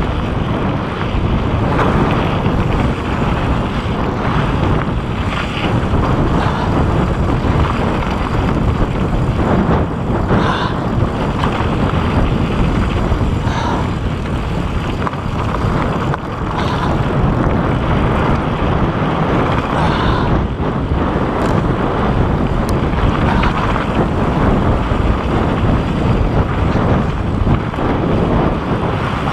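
Wind rushing over the microphone together with the steady rumble and rattle of mountain bike tyres and frame running fast down a rocky dirt trail.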